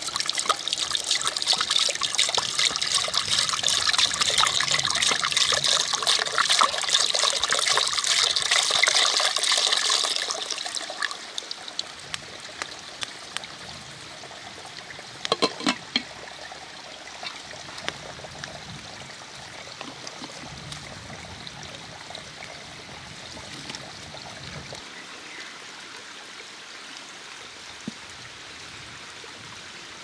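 Water poured in a steady stream from a ceramic jug into a black cooking pot, splashing for about ten seconds before it tails off. A few seconds later comes a short clink of a glass lid set on the pot. After that only a faint steady hiss remains.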